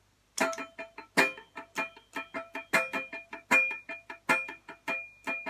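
Ibanez GAX70 electric guitar played through a Roland Bolt 30 amplifier, picking a quick single-note riff of sharply struck, ringing notes, several a second, beginning about a third of a second in.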